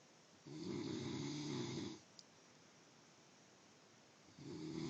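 A sleeping person snoring: two long, buzzy snores about four seconds apart with a quiet pause between, the second running on past the end.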